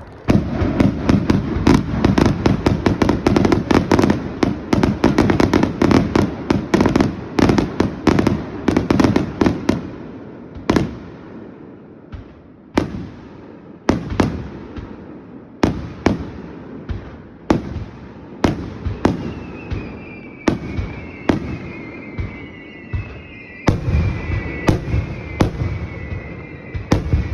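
Aerial fireworks bursting: a dense, rapid barrage of bangs for the first ten seconds or so, then single booming bursts about once a second. From about two-thirds of the way in, several high whistles slide down in pitch between the bangs.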